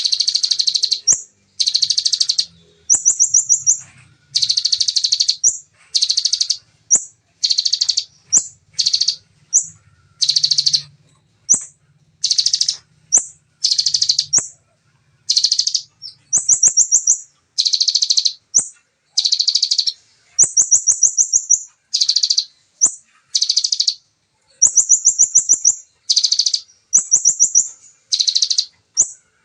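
Ciblek konin (a prinia) singing the fast, dense 'shooting' song bird-keepers train for. It gives short, high, buzzy bursts about once a second, some of them quick fine trills, with hardly any pause between them.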